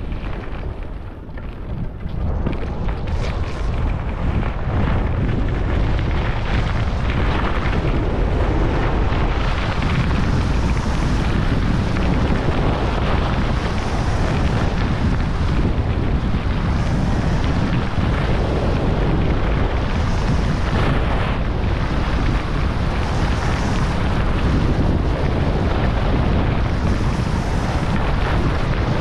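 Wind rushing and buffeting over a GoPro Hero11 Black's microphone as a skier speeds down a groomed piste at up to about 65 km/h, with the hiss of skis on packed snow. The rush builds over the first few seconds as speed picks up, then stays steady and loud.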